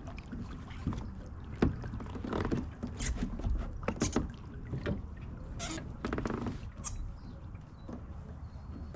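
Irregular knocks, clicks and rustles of gear being handled aboard a small fishing craft such as a kayak, over a low rumble of wind or water.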